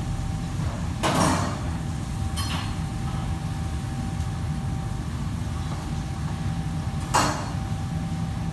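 Kitchen clatter: metal pots, bowls and utensils knocking together three times, about a second in, shortly after, and near the end. Under it runs a steady low rumble of kitchen machinery with a faint thin whine.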